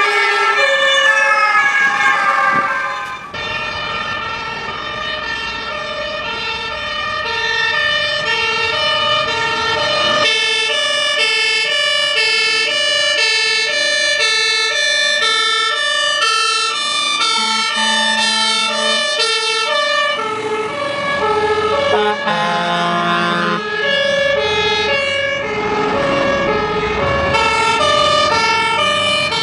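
Fire engine siren: a rising and falling wail at first, then after about three seconds a two-tone hi-lo siren alternating between two notes about twice a second, with other siren tones overlapping partway through.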